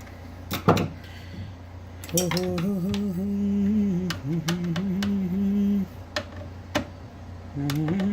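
A man humming a tune in long held notes while metal parts clink sharply: one loud clink about half a second in and a few lighter ones later. A steady low electrical hum runs underneath.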